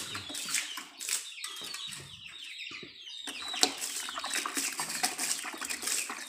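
Wet slapping and splashing as a hand scoops liquid from a plastic bucket and flings it onto a heap of wet cow dung. Short chirps of birds or chickens sound in the background.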